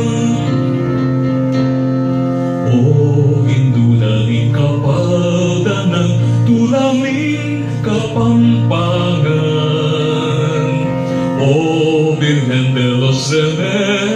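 A Kapampangan Marian hymn: a voice singing held notes with vibrato over sustained low chords of instrumental accompaniment.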